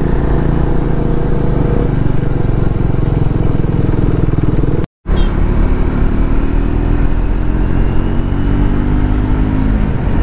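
Triumph Scrambler 400 X single-cylinder engine running at road speed under rushing wind noise, heard from on the bike. There is a brief total dropout just before halfway, after which the engine note climbs gently.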